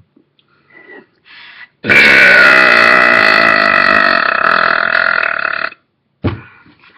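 A person belching: one long, loud belch lasting about four seconds, starting about two seconds in and cutting off sharply, followed by a short loud sound.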